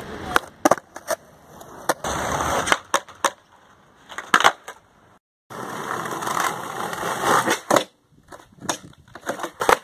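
Skateboards rolling on concrete, with many sharp clacks from tails popping and boards landing, and stretches of rolling and scraping noise from wheels and boards on wood and concrete. The sound drops out completely for a moment a little past halfway.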